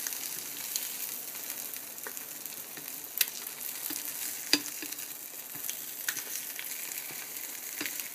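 Liverwurst slices and an egg frying in a nonstick pan: a steady high sizzle, broken by a few sharp clicks, the loudest about three and four and a half seconds in.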